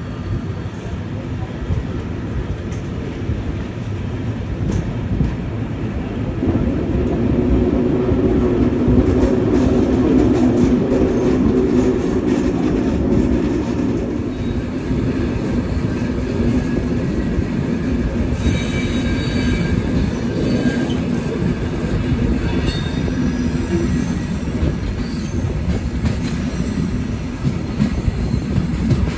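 Passenger train coaches running on rails, heard from an open coach window: a steady rumble of wheels on track, with high-pitched wheel squeal for a few seconds about two-thirds of the way through as the train rounds a curve.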